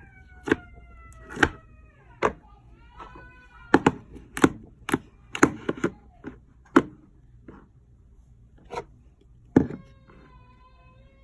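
Slime being squeezed and poked, giving sharp irregular pops and clicks. Several drawn-out, slowly falling squeaky tones, each about a second long, come in near the start, around the middle and near the end.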